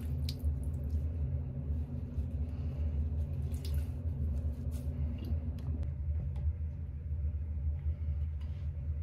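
A steady low mechanical hum, with a few faint clicks and light taps scattered over it.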